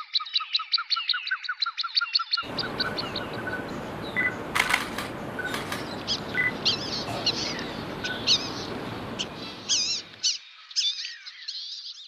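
Small songbirds: first a rapid chattering run of about nine notes a second that breaks off after about two seconds, then over a steady background hiss a few sharp clicks and short whistled notes, then quick high warbling song phrases that run to the end.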